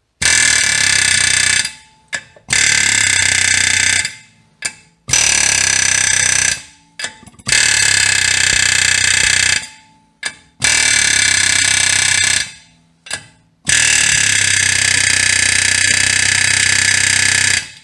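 Ingersoll Rand pneumatic air hammer with a hammer head pounding on the face of a brake rotor in six long bursts, each lasting about one and a half to four seconds, with short blips of the trigger between them. It is trying to break loose a rotor that is rusted onto the hub.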